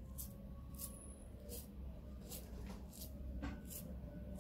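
A fingertip flicking the paint-wet bristles of a toothbrush, spattering paint onto paper: a series of short, faint, high swishes, about one every half second.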